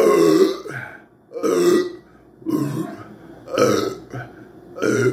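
A man burping repeatedly, five burps about a second apart with the first the loudest, from the gas of a bottle of Sprite he has just chugged.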